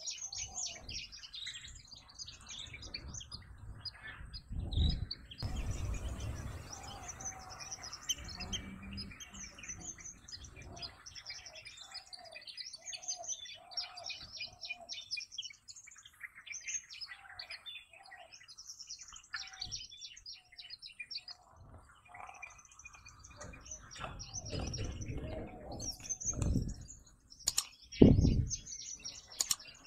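Many birds chirping and calling in a busy chorus, with a run of repeated lower calls through the middle. A few low thuds break in, the loudest a sharp knock near the end.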